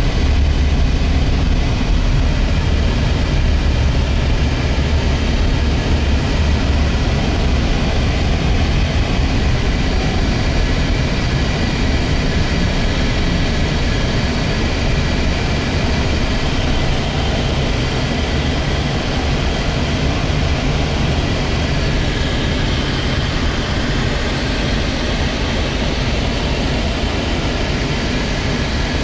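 Steady road and engine rumble heard from inside a moving car, deepest in the low end. It eases a little past halfway.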